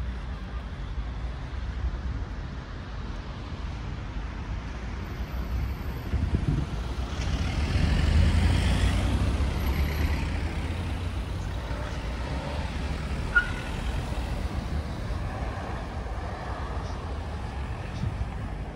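City road traffic at an intersection: a steady low rumble of cars, with a louder vehicle passing by that swells and fades about seven to ten seconds in. A brief high blip sounds once a little later.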